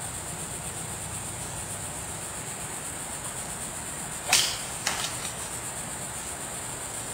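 A golf club swung down through pine straw and striking the ball in a punch-out shot: one sharp swish and strike about four seconds in, followed about half a second later by a second, fainter knock.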